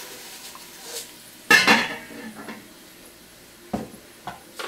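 Stainless steel pot lid set onto the pot: one sharp metal clank with a short ring about a second and a half in, followed by a few light knocks near the end.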